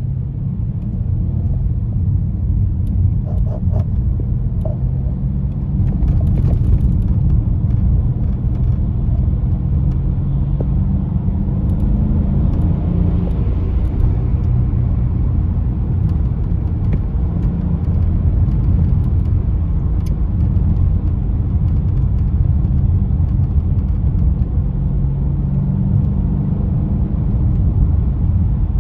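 Car engine and road rumble heard from inside the cabin while the car is driven hard; the engine note rises and falls as it goes.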